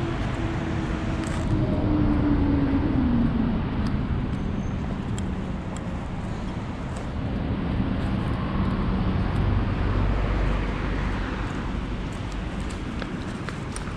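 Street traffic: cars going by, swelling about two seconds in and again about ten seconds in, the first with an engine tone that falls in pitch as it passes.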